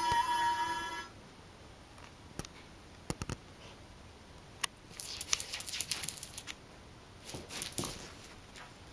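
A small dog's claws scratching and tapping on a tiled floor as it paws and lunges at a bug, in short scattered bursts. A steady pitched sound, like a few notes of music, stops about a second in.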